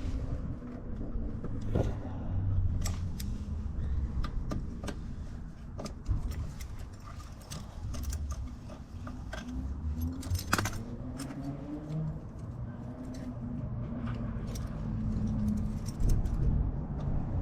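Scattered small metallic clicks and clinks of hand tools and brake parts being handled on a motorcycle front brake caliper, over a steady low rumble.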